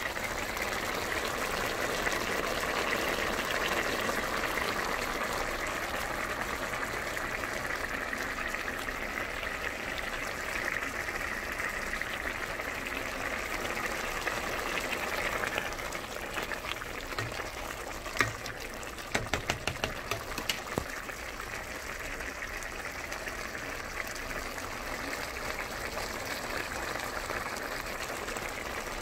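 Pot of collard greens and smoked turkey broth boiling: a steady bubbling hiss that thins out a little past halfway. Several sharp clicks follow in quick succession.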